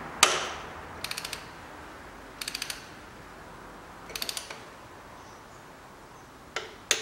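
Click-type torque wrench set to 25 N·m tightening a spark plug: one sharp click near the start, then four short runs of rapid ratchet clicking.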